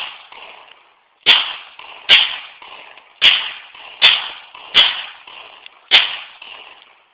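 Glock pistol in .40 S&W fired six times in slow succession, about one shot a second at uneven spacing, each sharp crack followed by a short echo.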